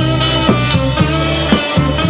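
Rock band playing an instrumental passage with no singing: a drum kit keeping a steady beat under guitar.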